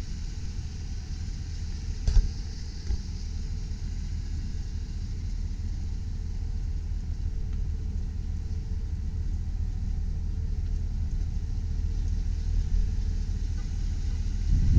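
Chevrolet Silverado 2500 pickup's engine idling, a steady low-pitched hum, with one brief knock about two seconds in.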